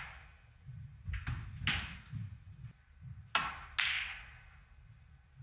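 Snooker balls clicking as a shot is played: four sharp clicks, the loudest about three and a half seconds in, ringing briefly.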